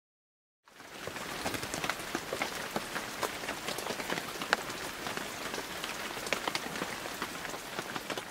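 Rain falling: a steady hiss of rain dotted with many sharp individual drop ticks, starting suddenly about a second in.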